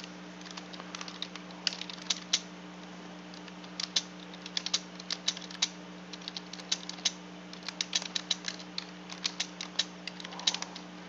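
Typing on a computer keyboard: irregular clusters of sharp keystroke clicks with short pauses between them, over a steady low hum.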